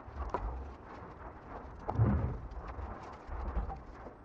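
Workbench handling noises as a turbocharger housing is wiped with a rag and moved about: light clicks and low thumps, the loudest thump about two seconds in.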